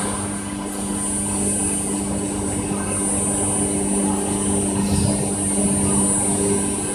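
CNC router with a linear automatic tool changer running: a steady machine hum with a constant high-pitched whine over it.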